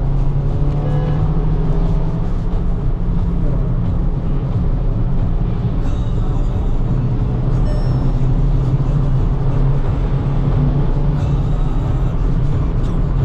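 The 2018 Skoda Octavia vRS 230's turbocharged 2.0-litre four-cylinder engine and tyre noise, a steady low drone while driving at an even pace, heard from inside the cabin.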